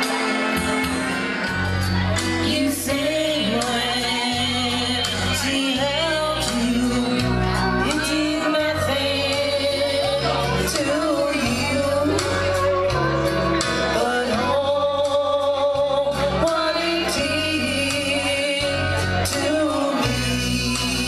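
Karaoke singing: a voice sung into a microphone over a recorded backing track with a strong bass line.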